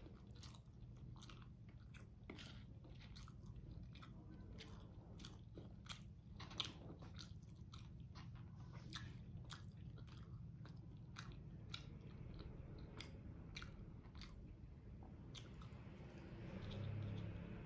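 Close-up chewing of breaded fish sticks: faint, irregular soft crunches and wet mouth clicks, a few each second, with a fuller bite near the end.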